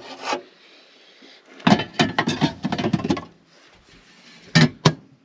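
Metal baking tray pushed back into a 12-volt travel oven: a second and a half of metal clattering and ringing, then two sharp metal clacks near the end.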